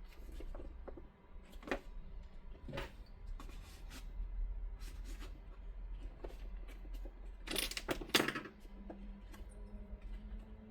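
Hand stitching of stiff X-Pac fabric with an awl: scattered soft clicks and crinkles as the fabric and needle are handled, with two louder, longer scratchy strokes close together near the end as the thread is drawn through. A low hum runs underneath.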